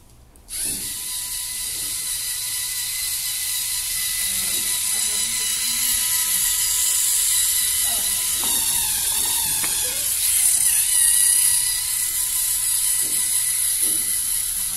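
LEGO Mindstorms NXT robot car's servo motors and gear trains driving it across a tiled floor: a steady high mechanical whine with gear noise. It starts suddenly about half a second in, and its pitch wavers for a few seconds in the middle as the motors' speed changes.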